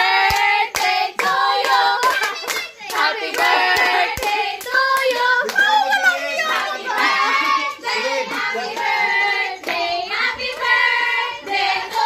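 A small group of voices singing together, with hand claps beating in time.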